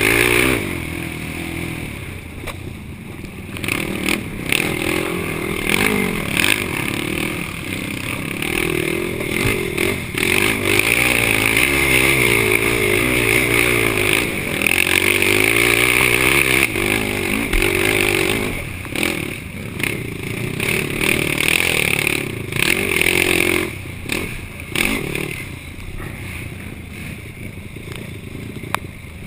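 Yamaha YFZ450 quad's single-cylinder four-stroke engine revving up and down under race throttle, heard from a helmet-mounted camera, with clattering knocks from the rough trail. The engine is loudest in the middle stretch and lets off briefly a few times after it.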